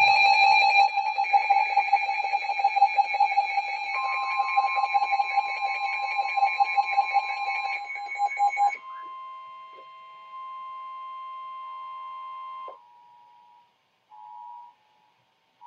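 Emergency alert tones for a tornado warning. A loud electronic alarm pulses rapidly for about nine seconds, and a steady higher tone joins it about four seconds in. Steady tones carry on alone until about thirteen seconds, then come two short beeps.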